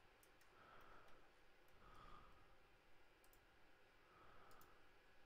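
Near silence with faint, scattered clicks of a computer mouse.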